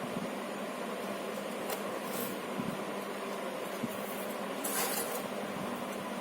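Steady fan-like background hiss, with a few brief light rustles and scrapes of craft sticks being handled and glued, the longest a little before the end.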